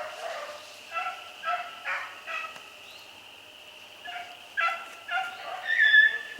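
Beagles baying on a rabbit's trail: a string of short, evenly spaced bawls, a pause about halfway through, then more calls ending in a longer, higher note near the end. The hounds are running a rabbit.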